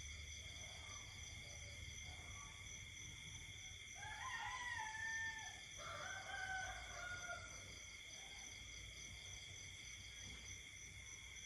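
A rooster crows once, a drawn-out call in two parts near the middle, over a steady chorus of night insects trilling at several high pitches.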